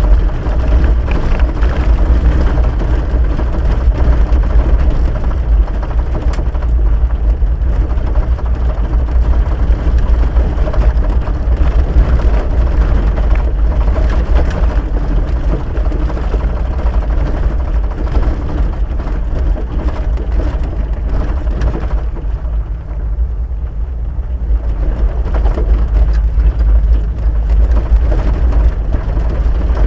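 Inside a vehicle driving on a gravel dirt road: a steady low engine and tyre rumble, with frequent small knocks and rattles from the rough surface. The rumble eases briefly about two-thirds of the way through.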